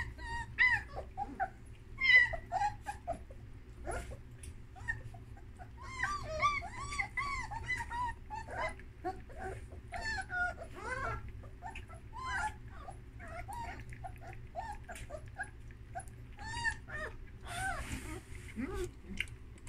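A litter of young German Shepherd puppies whimpering and yipping, many short high whines rising and falling and overlapping, heaviest in two spells in the first half. Short soft clicks come through between the cries.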